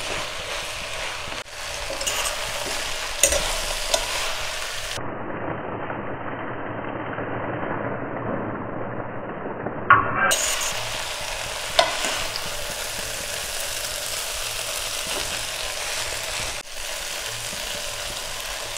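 Noodles and vegetables sizzling in a hot pot while a wooden spatula and fork toss and stir them, with a few sharp knocks of the utensils against the pot.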